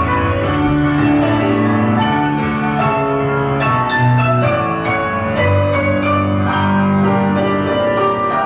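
Background music with a piano: held notes and chords over a steady pulse.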